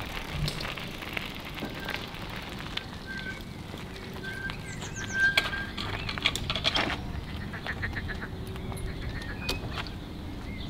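Outdoor riverside ambience: birds calling with short whistled notes over a steady background, with a few light clicks and knocks.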